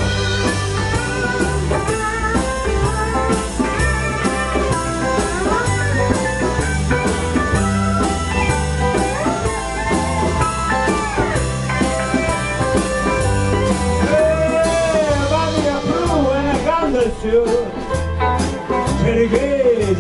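Live country-rock band playing an instrumental break: drums and bass keep a steady beat under electric guitars, with a lead line that slides between notes.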